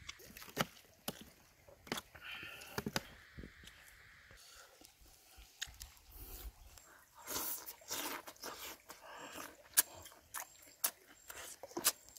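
Close-up eating sounds: a man chewing and crunching boiled pig intestine and shredded banana-stem salad, with many irregular sharp wet mouth clicks and smacks.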